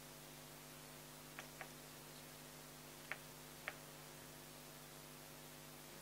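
Near silence with a faint steady hum and four faint small ticks, two close together about one and a half seconds in and two more a little after three seconds: a soldering iron tip and solder wire touching the pads of a small video transmitter board.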